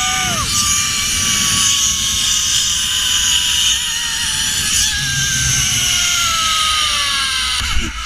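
Zipline trolley pulleys whirring along the steel cable, a high whine that slowly falls in pitch as the rider slows, over heavy wind noise on the microphone. A knock near the end as the rider reaches the landing platform.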